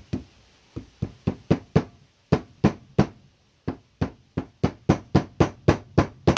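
A small mallet tapping a new seal into a mower engine's casting: about twenty light, sharp taps at roughly three a second, with a few brief pauses.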